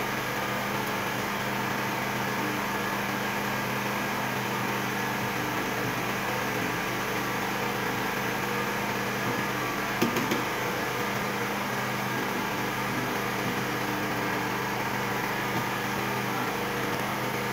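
Steady machine hum, like a motor or fan running, with one brief knock about ten seconds in.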